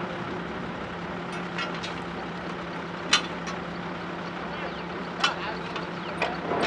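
Borewell drilling rig's engine running steadily with a constant hum, with a few sharp clicks or knocks at irregular intervals.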